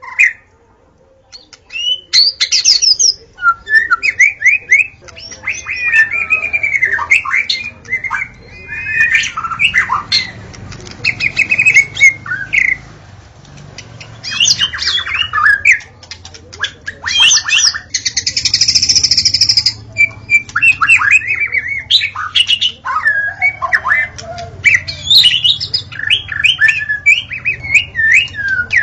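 White-rumped shama (murai batu) singing a loud, varied song of quick whistled phrases, fast rattling note runs and a harsh buzzy call near the middle. It is a lure recording meant to provoke caged shamas into singing.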